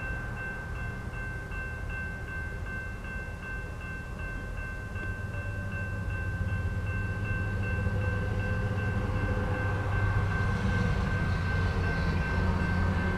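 Railroad crossing warning bell ringing rapidly and steadily. Under it, the low rumble of an approaching freight train's diesel locomotives grows louder from about halfway through.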